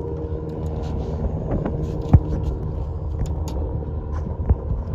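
Boat engine idling with a steady hum, with two sharp knocks, one about two seconds in and one near the end.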